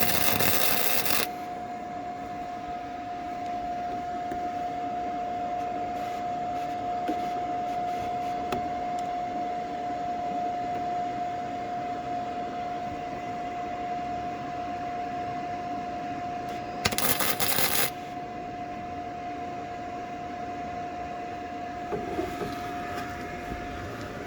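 100-volt welder laying short weld bursts on a steel car frame: two loud arc bursts of crackle and hiss of about a second each, one at the start and one about 17 seconds in, and a fainter one near the end. A steady high hum runs underneath throughout.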